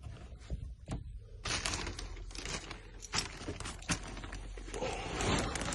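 Handling noise: a busy run of small clicks, clinks and rustling that starts about a second and a half in and gets denser near the end.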